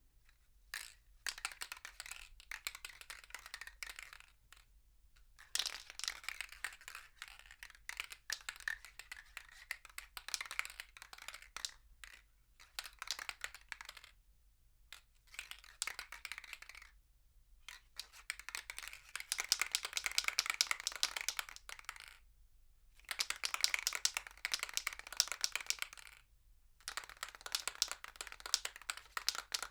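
Aerosol spray paint can being shaken, its mixing ball rattling rapidly inside, in repeated bouts of a few seconds each with short pauses between. Heard from a medium distance, in a small room.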